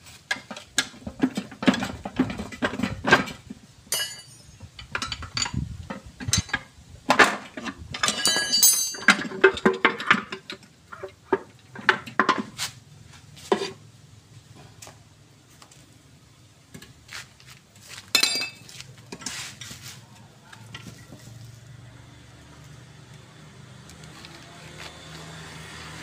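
Metal clanking and knocking of a pry bar and hand tools against a truck transmission housing as the case is worked loose and lifted off the gear stack. The knocks come thick and fast for the first dozen seconds, then only a few scattered ones.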